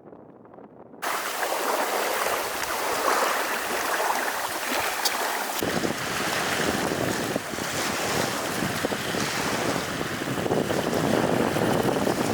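Lake water lapping in small waves, with wind buffeting the microphone. The sound comes in suddenly about a second in, and a low wind rumble joins about halfway.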